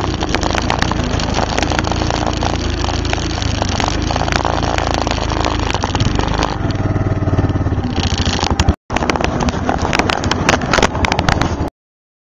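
ATV engine running as it rides along a gravel road, with stones crunching and clicking under the tyres. The sound drops out for an instant about two-thirds of the way through, then cuts off suddenly shortly before the end.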